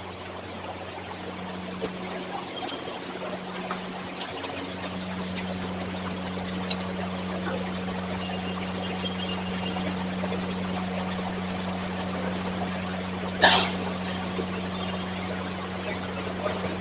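Steady low electrical hum under room noise, with a whiteboard marker squeaking and scraping as lines are drawn on the board; one loud, sharp marker stroke about thirteen seconds in.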